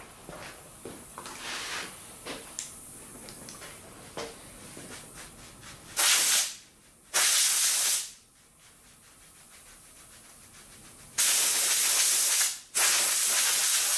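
Compressed-air blow gun blasting sawdust out of CNC-carved halftone grooves in plywood, in four hissing bursts: two short ones about six and seven seconds in, then two longer ones near the end. Before the blasts, quieter scratching of paintbrush bristles scrubbing the grooves.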